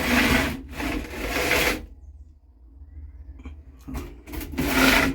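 Two long scraping, rubbing strokes of about two seconds each, with a quiet pause between them, from sheet metal being worked against the freezer body.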